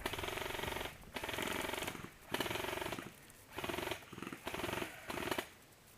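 Electric airsoft rifle (AEG) firing about seven full-auto bursts of rapid clicking over the gearbox whine. The first two bursts last about a second each and the later ones are shorter and quicker.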